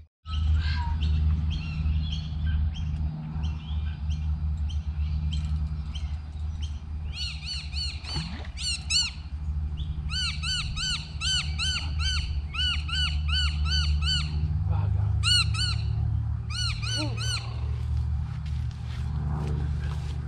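A bird calling in rapid runs of harsh, arching notes, about three a second, in several bouts from about seven seconds in, over a steady low rumble.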